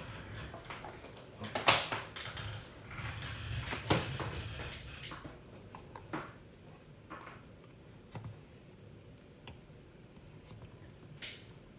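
Handling noise from a multimeter and its test leads: small plastic clicks, knocks and rustling, busier in the first half, then a few sparse clicks.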